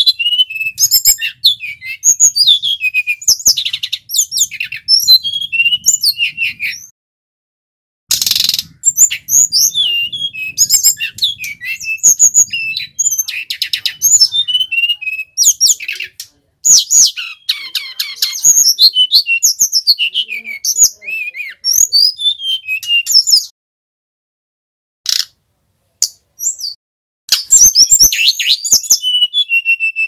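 Male brown-chested jungle flycatcher singing a long, varied song of rapid high whistles and swooping notes, in runs broken by short pauses about seven seconds in and again late on.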